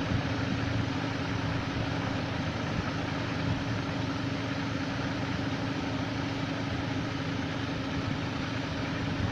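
Steady machine hum with a constant low tone over an even hiss, unchanging throughout.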